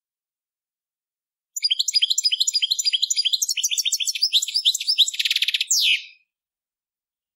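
European goldfinch singing one song phrase, a fast run of twittering, chirping notes starting about a second and a half in, closing with a short buzzy rattle and a falling final note: the 'vizio', the final flourish of the phrase that goldfinch breeders prize.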